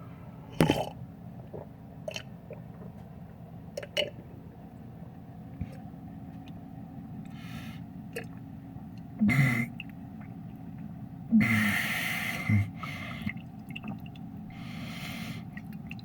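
A man drinking a glass of water bent upside down over a sink to cure hiccups: a sharp knock near the start, then gulping, gasping and spluttering with water splashing, the biggest burst about three-quarters of the way through.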